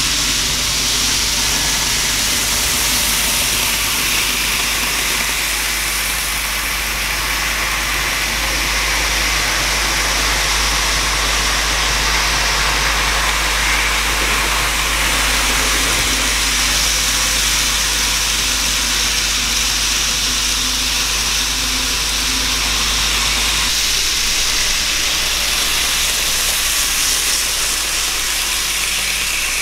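N-gauge model train, a steam locomotive hauling covered goods wagons, running on the layout: a steady whirring hiss of the motor and wheels on the rails over a low hum.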